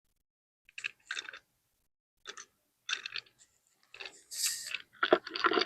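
Plastic sprinkler-valve parts being handled and taken apart: a few short clicks and scrapes, a longer scraping rustle about four seconds in, and a quick cluster of clicks near the end.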